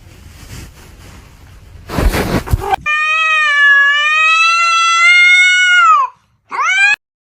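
A cat's long meow lasting about three seconds, holding its pitch and then dropping at the end, followed by a short rising meow. A brief loud noise comes just before the long meow.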